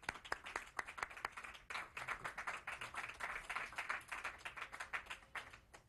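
Small audience applauding with a scattering of individual hand claps, thickest in the middle, thinning out and stopping just before the end.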